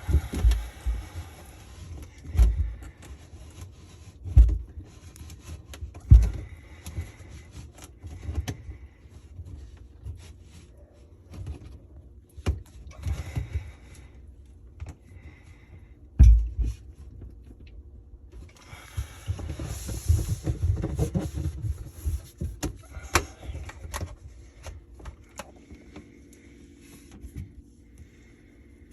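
Plastic sink drain pipes and P-trap being handled and their slip nuts threaded back on by hand: scattered knocks and bumps, with a longer stretch of scraping and rubbing about twenty seconds in.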